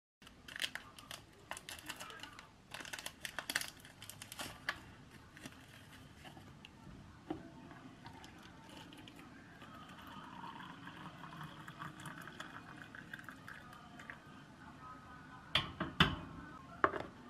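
Hot water poured from a kettle into a mug, a steady faint trickle lasting several seconds. Light clicks and knocks come before it, and a few sharp knocks near the end as the kettle is handled on the stove.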